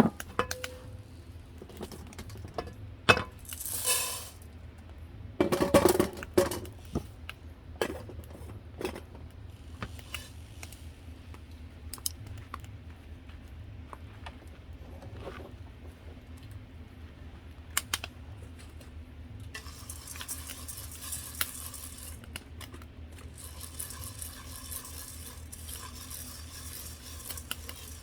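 Cooking pots, pans and utensils clinking and knocking as food is handled, with a few louder clatters in the first seconds. A steady high hiss comes in about two-thirds of the way through.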